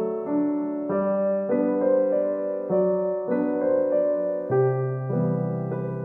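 Background music: a gentle solo piano piece, notes played at an even, unhurried pace, about every half second or so.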